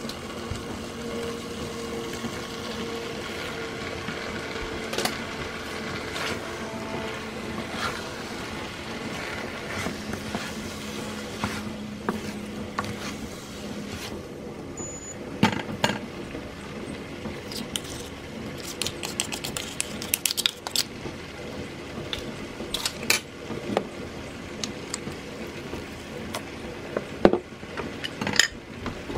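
Wooden spatula stirring and tossing ham, vegetables and spaghetti in a nonstick frying pan over steady frying noise. Scattered clicks and knocks of the spatula against the pan come thicker from about halfway through.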